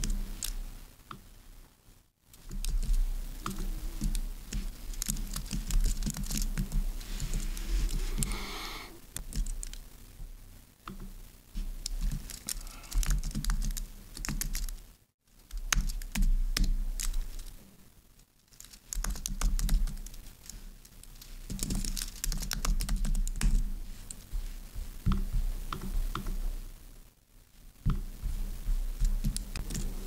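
Typing on a thin white computer keyboard: quick runs of key clicks broken by brief pauses, as code is written.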